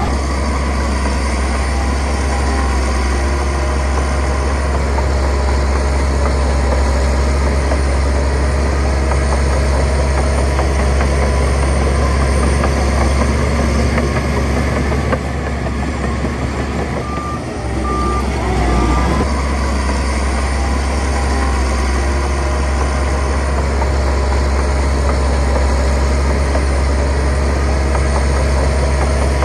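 Heavy diesel earthmoving machinery running with a deep steady rumble. About two-thirds of the way through, a reversing alarm beeps three times.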